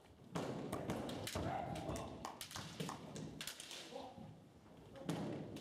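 Kendo exchange: a rapid series of sharp clacks from bamboo shinai and stamping feet on a wooden floor, with short kiai shouts from the fencers.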